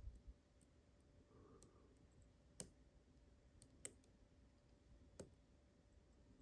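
Faint clicks of a lock pick working the pins of a Mul-T-Lock Junior pin-tumbler lock during single-pin picking: three distinct clicks a little over a second apart, with a few fainter ticks in between.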